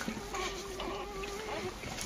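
Kangal dog whining softly: one long, steady, thin whine lasting over a second, with faint rustling in the straw.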